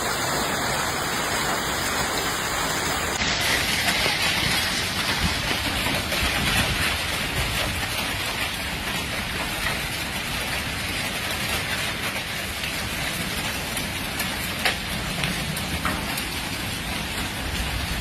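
Heavy storm rain pouring down in a steady rush, with a few isolated sharp knocks in the second half.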